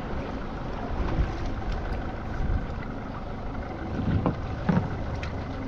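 Wind buffeting the microphone and water sloshing against the hull of a small fishing boat at sea, with a few dull knocks about a second in and again after four seconds.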